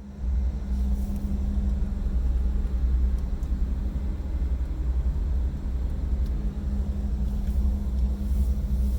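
Vehicle engine running: a low, steady rumble with a steady hum above it, starting suddenly.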